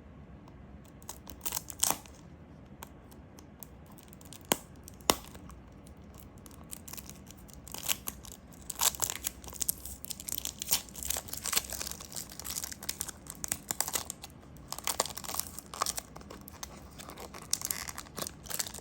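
A small toy car's packaging being opened by hand: crinkling, tearing and rustling, with a couple of sharp clicks a few seconds in and busier handling in the second half.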